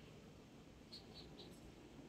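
Near silence: a faint low background rumble, with three quick, faint high chirps about a second in.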